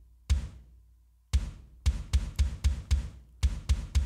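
Metal kick drum sample played on its own: two single hits, then from about a second in a fast run of about four hits a second. It is processed to keep mostly the body and sustain of each hit, its attack cut by a transient designer and held even by a compressor.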